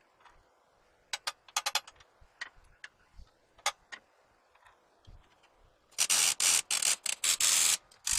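Small metal parts clicking and clinking as they are handled, then several loud hissing bursts about six seconds in.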